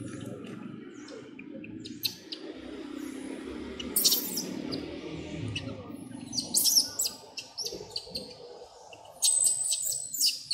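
Short, high-pitched animal chirps in quick clusters, the loudest about four seconds in and again between six and seven seconds, with a thin steady high tone starting near the end over a low background rumble.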